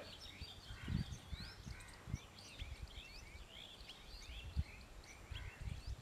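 Birds chirping: many short, quick rising notes, overlapping and irregular, with low thumps underneath.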